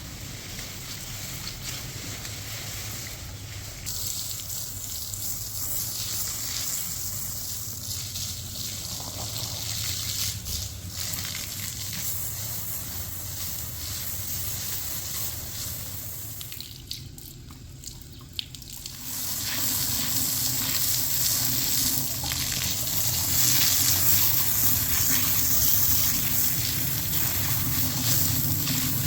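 Water running steadily. It falls away briefly about 17 seconds in, then runs louder again.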